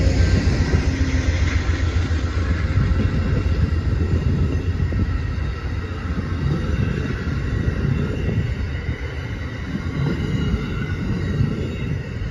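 Amtrak Amfleet passenger cars rolling past at speed: a steady rumble of steel wheels on the rails, easing slightly about halfway through.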